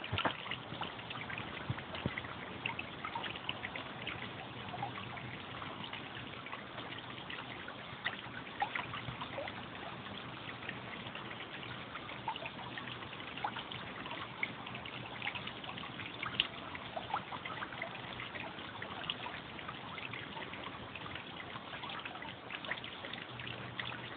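Water trickling steadily into a pond, a continuous wash dotted with many small brief splashes.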